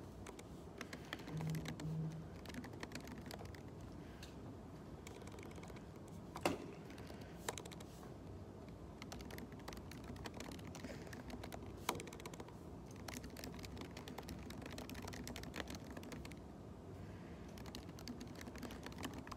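Quiet typing on a laptop keyboard: a continuous patter of soft key clicks, with a couple of sharper keystrokes about six and a half and twelve seconds in.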